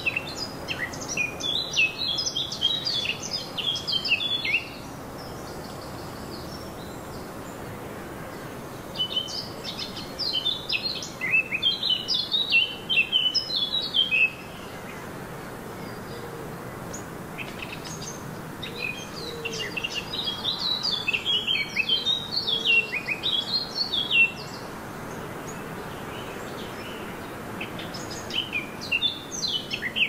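Songbird song: phrases of quick high chirping notes lasting four to seven seconds, with pauses of a few seconds between them and a new phrase starting near the end, over a faint steady background noise.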